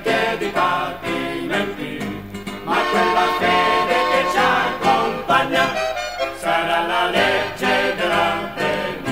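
Music: an instrumental passage of an Italian partisan song, carrying on after the sung verses end.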